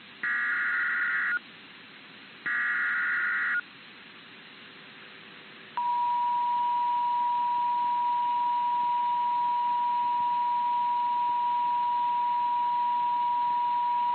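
NOAA Weather Radio alert signal ahead of a flash flood warning. First come the last two of three identical SAME data bursts, each a second-long electronic warble. Then, about six seconds in, the steady 1050 Hz warning alert tone starts and holds.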